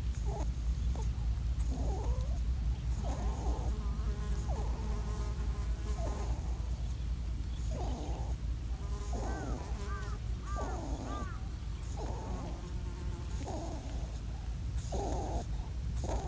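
Badly wounded wild European rabbit crying out over and over, short cries that bend in pitch, about one a second, which the owner takes as a desperate plea from a rabbit that may be near death. A steady low rumble runs underneath.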